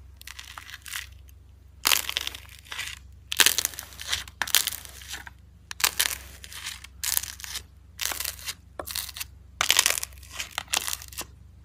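Metal spoon stirring a foamy, bubbly slime mixture in a plastic tub, with a short burst of crackling noise at each pass, about one a second.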